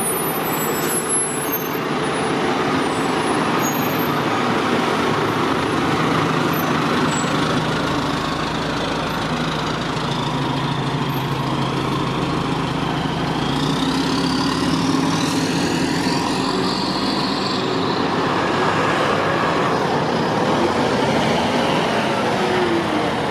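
Diesel engine of a 2003 Seagrave Marauder fire engine running as it pulls out and drives off down the street, with a whine that rises in pitch about halfway through.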